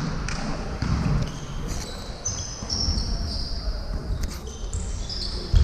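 Volleyballs being struck and hitting the floor during a team warm-up, a few separate sharp slaps and thuds with the strongest right at the end, ringing in a large sports hall. A few short high squeaks come about two to three seconds in.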